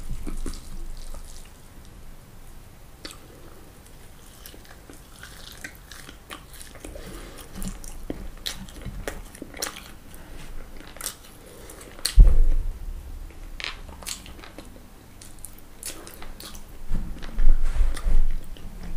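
Close-miked chewing and crunching of crispy fried food, with scattered crisp crackles. A loud low thud comes about two-thirds of the way through, and a cluster of heavier low thuds comes near the end.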